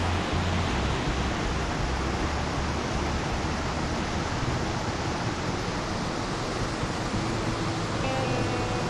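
Rushing water making a steady, even rush with no breaks.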